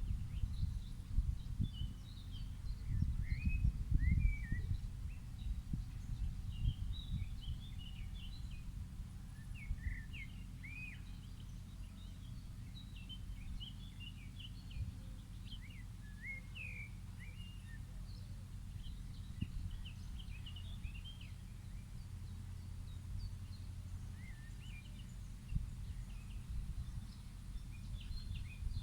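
Birds chirping in short, scattered calls, over a steady low rumble that is heavier in the first few seconds.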